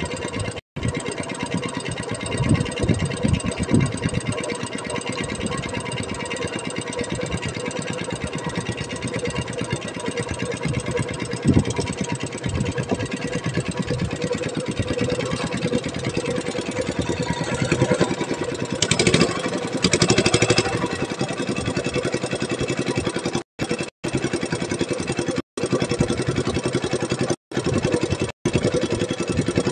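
Small fishing boat's engine running steadily as the boat moves through the water, with a brief louder rush of noise about nineteen seconds in. The sound cuts out for an instant several times near the end.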